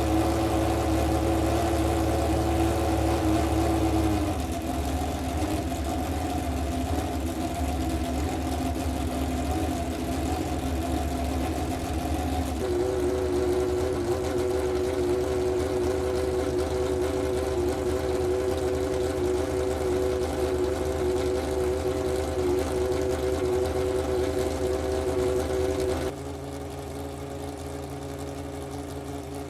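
Panoz DP09B's 4.2-litre Menard V12 race engine idling steadily with an even, high-pitched hum. The pitch steps abruptly to a different steady note a few times, and it drops in loudness near the end.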